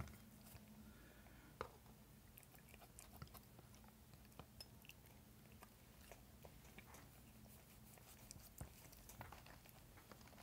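Faint, scattered clicks and small crunches of a cat chewing food.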